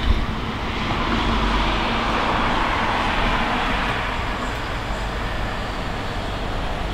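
A vehicle passing by: a steady rushing noise that swells to its peak about two to three seconds in, then slowly fades.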